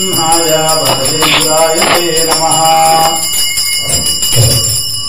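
A Kannada devotional song is sung over a hand bell rung fast and steadily. The singing holds a long note and ends about three seconds in, while the bell keeps ringing, and a brief low sound comes near the end.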